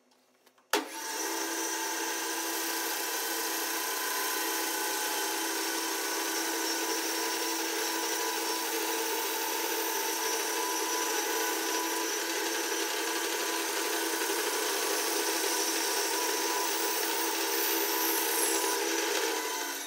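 A 20-inch bandsaw cutting a wooden board along a curved line, in footage sped up fourfold: a steady, high-pitched whirr that starts suddenly about a second in and runs evenly.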